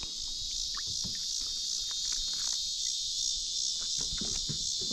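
Chorus of insects in the surrounding vegetation, a steady high-pitched shrill drone with a slight even pulsing, with a few faint clicks beneath it.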